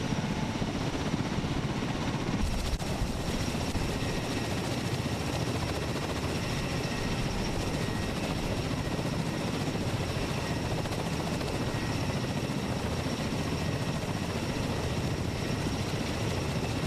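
US Marine MV-22 Osprey tiltrotor running steadily: a dense, heavy rotor noise with a thin high turbine whine on top.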